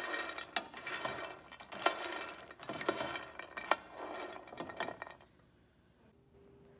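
Dry foxnuts (makhana) being stirred in a nonstick frying pan with a slotted spatula: a light rustling, rattling scrape broken by sharp taps of the spatula against the pan. It stops about five seconds in.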